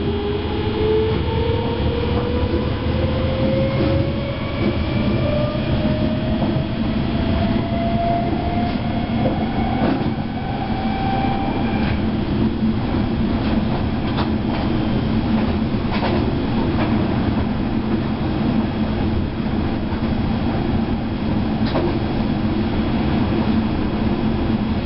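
DB class 420 electric multiple unit running, heard from the driver's cab: a whine rises steadily in pitch over the first twelve seconds or so as the train picks up speed, then fades under a steady rumble of wheels on rails with a few sharp clicks.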